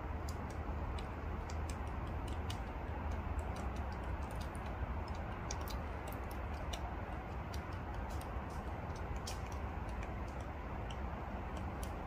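Great spotted woodpecker pecking at tree bark and wood while foraging for insects: irregular sharp taps, a few a second, over a steady low background rumble.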